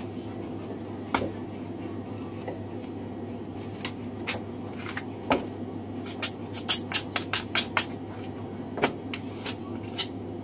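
Butcher's knife clicking and knocking against bone and a plastic cutting board while a lamb shoulder is boned out. The knocks are scattered, with a quick run of several about two-thirds of the way through, over a steady low hum.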